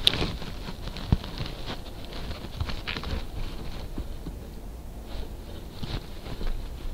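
Raccoon handling a trail camera right at the lens: its fur rubs and scrapes over the housing while its paws tap and scratch at it. The sound is irregular rustling and scratching with scattered knocks, sharp ones right at the start and about a second in.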